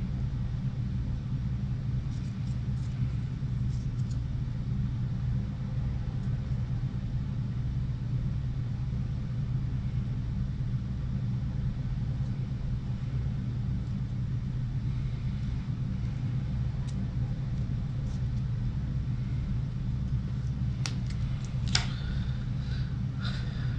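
A steady low hum, with a few light clicks and taps near the end as brass fittings and a roll of Teflon tape are handled on a tabletop.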